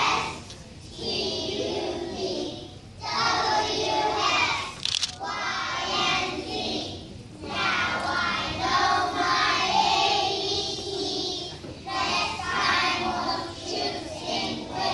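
A group of preschool children singing together, in phrases of a few seconds with short breaks between them.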